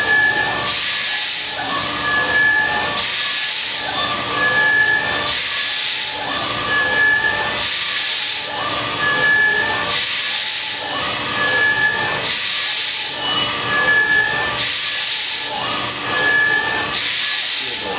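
5-axis CNC router spindle cutting a small block, a steady hissing machining noise that swells and fades in a regular cycle about every two seconds as the tool sweeps back and forth, with a short high tone about once a second.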